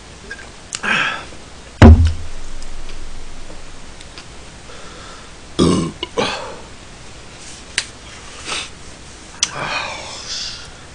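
A man burping several times after gulping from a glass bottle, with a loud thump about two seconds in.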